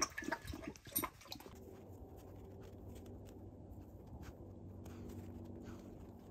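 A Great Pyrenees–Anatolian Shepherd mix puppy lapping water from a bowl, a quick run of wet clicks over the first second or so. After that, a faint steady low hum.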